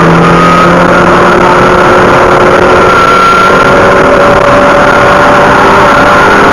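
Car engine heard from inside the cabin, running loud under way with its pitch rising slowly and steadily as the revs climb, over a heavy rush of wind and road noise.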